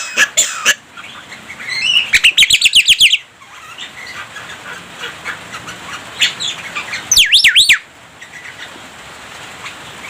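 Javan myna singing: a few clicks, then about two seconds in a fast run of rising-and-falling whistled notes, soft chatter, and about seven seconds in a short loud series of deep swooping whistles.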